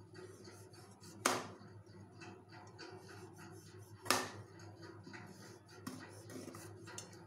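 Kitchen knife chopping a slab of white compound chocolate on a plastic cutting board: a run of small crisp clicks as the blade cracks through the chocolate, with two sharp knocks, about a second in and about four seconds in.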